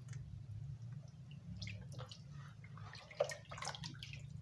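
Hands washing tripe in a plastic basin of water: squelching and sloshing, with a sharper splash about three seconds in and water dripping back into the basin as the tripe is lifted out.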